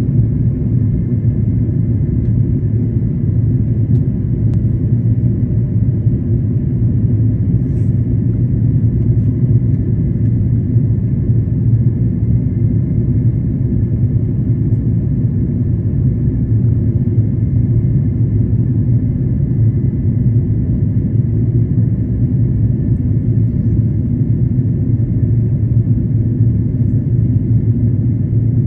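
Jet airliner cabin noise: a steady, loud, low rumble of engines and rushing air heard from inside the passenger cabin, with a faint thin whine held on top.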